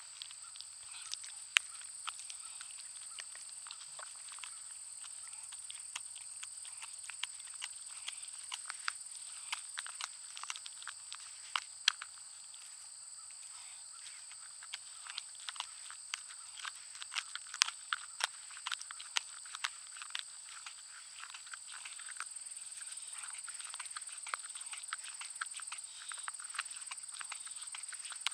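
A Schnauzer–pug mix dog chewing a bone: irregular crunching and cracking, a few sharp loud cracks among many smaller ones, busiest around the middle. A steady high-pitched trill runs underneath.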